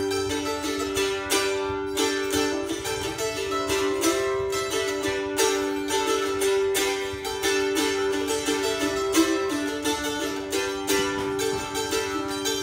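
Instrumental break in an acoustic folk song: a plucked string instrument strummed in a steady rhythm over held notes.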